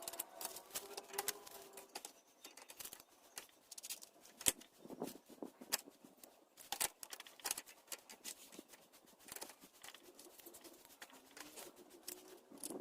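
Irregular light clicks, taps and small knocks of hand tools and metal parts being handled while working on a scooter swingarm.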